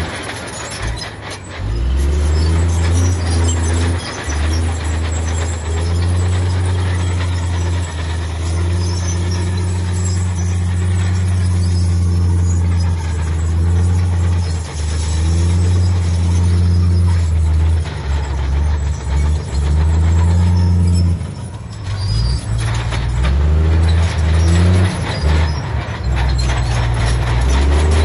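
Heavy diesel engines of earthmoving machinery running: a deep, loud drone that holds steady for several seconds at a time, then briefly drops and changes pitch, with a hiss and rattle over it.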